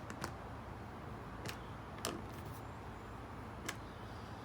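Scattered light clicks and taps of a nut driver working the plastic cover screws of a Predator 9500 inverter generator as they are snugged down, over a low steady room hum.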